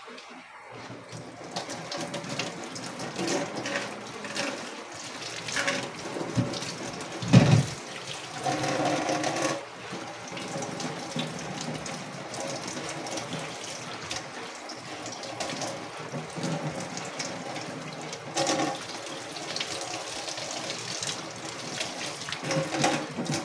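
Kitchen tap running into a steel sink while raw chicken pieces are rinsed by hand under the stream, water splashing unevenly. A single loud thud about seven seconds in.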